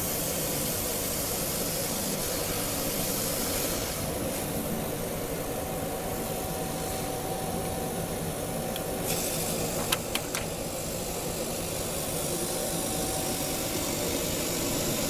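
A machine running steadily, with a few sharp clicks or knocks about ten seconds in.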